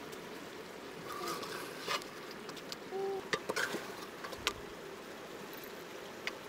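Metal ladle stirring chicken curry simmering in a metal pot over a wood fire: scattered light clicks and scrapes of the ladle against the pot over a steady faint hiss.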